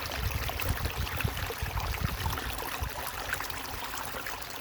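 Stream water flowing and babbling steadily.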